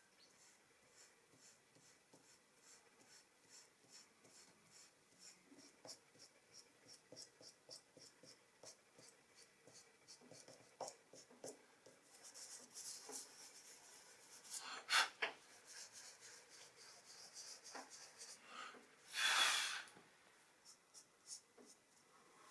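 Dry pastel stick scratching on thin drawing paper in quick short strokes, about three a second, as grass blades are drawn, the strokes getting denser partway through. A louder rub comes about fifteen seconds in and a longer, louder swish of hand or pastel across the paper near the end.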